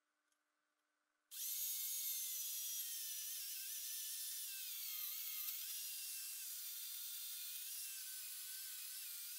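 Corded electric chainsaw starting about a second in and cutting down through a cherry log, a steady high motor whine whose pitch sags and wavers as the chain bites into the wood.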